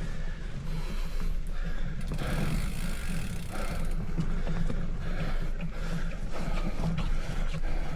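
Bicycle drivetrain ticking and rattling, the mechanical clicking of chain and gears on a ride, over a steady low rumble of wind on the microphone.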